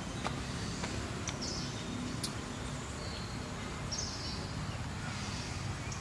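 Outdoor ambience: a steady low rumble with a few light clicks and several short high chirps.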